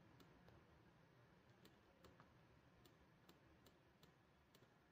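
Near silence with faint, irregular clicks scattered throughout.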